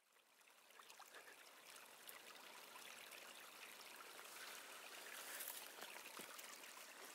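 Faint trickle of a shallow creek running over stones, fading in at the start and holding steady, with small splashes as a knit cap is dipped in and lifted out of the water.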